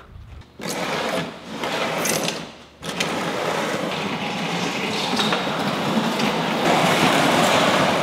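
Large plastic bulk bin being shoved across a concrete garage floor, scraping and grinding as it slides: a first push, a brief break a little under three seconds in, then one long continuous scrape.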